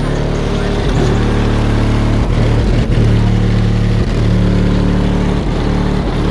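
Hip-hop beat played very loud through a car audio system's two DS18 EXL-XX12.4DHE 12-inch subwoofers powered by a CT Sounds Team 3000.1D amplifier, with long deep bass notes dominating.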